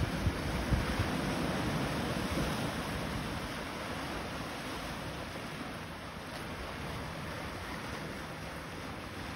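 Surf washing over and around shoreline rocks, a steady rush, with wind buffeting the microphone in a few low gusts near the start.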